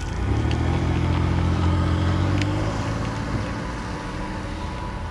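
Car engine pulling away and driving off. It is loudest in the first couple of seconds, then fades as the car moves away down the road.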